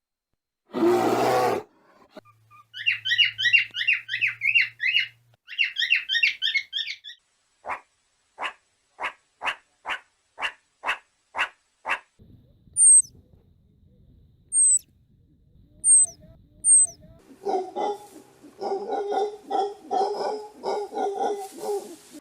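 A string of different animal calls, one after another: a short loud call about a second in, a few seconds of fast high chirping trills, a run of about nine evenly spaced calls, four short high chirps, then a quick series of repeated calls near the end.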